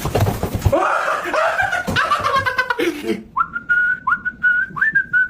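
A person's voice making a pitched, gliding mouth sound, then, about three seconds in, whistling: a run of short notes held near one pitch, each starting with a quick upward slide.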